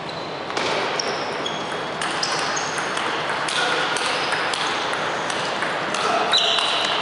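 Table tennis rally: irregular crisp pings of the ball struck by the bats and bouncing on the table, about one every half second, over steady background noise in the hall.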